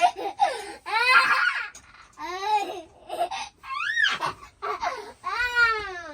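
A baby squealing and laughing in a string of short high-pitched bursts, the pitch swooping up and down in each.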